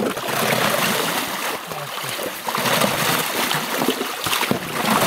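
Snow shovels splashing and sloshing water in an open hole in the ice, with irregular splashes and dripping.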